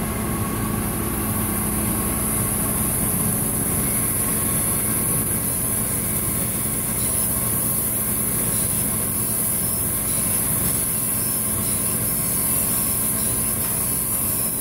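Cam grinder running steadily, its grinding wheel working a lobe of a 5.9 Cummins camshaft under a stream of oil coolant: a constant machine hum with a high hiss.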